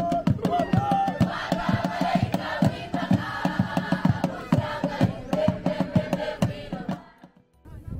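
Hand drums beaten in a fast, steady rhythm while a large group sings together over them. The music stops abruptly about seven seconds in.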